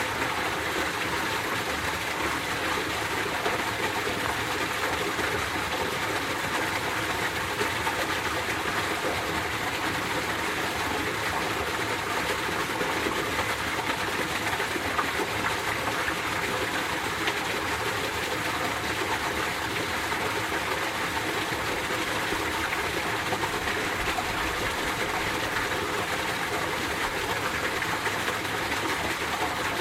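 Mountain valley stream in winter flowing, a steady, even rush of water.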